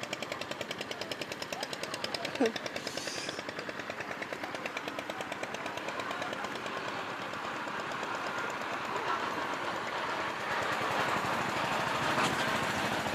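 A small engine running steadily with rapid, even beats, joined by a growing noise that gets louder in the second half.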